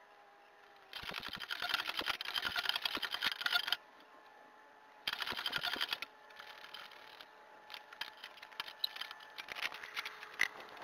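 Rapid metallic clicking, sped up, as a tool turns the spring-seat rings of a Blitz coilover to raise the ride height. It comes in two dense runs, the first about a second in lasting nearly three seconds and a shorter one around five seconds in, then scattered ticks.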